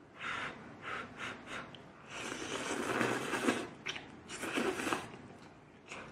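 A person eating hot rice-noodle soup up close: a few short puffs of breath over the noodles, then longer slurping noises in the middle.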